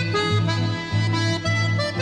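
Background music: a reedy melody over bass notes in a steady rhythm.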